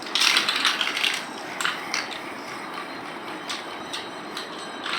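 Plastic toy building blocks clicking and rattling as they are handled, a dense clatter in the first second followed by scattered single clicks.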